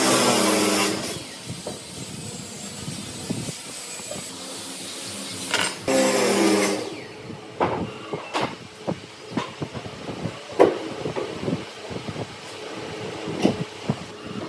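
A power woodworking tool cuts twice in short passes, each with a whining motor tone over a hiss. From about seven seconds in, irregular knocks and taps follow.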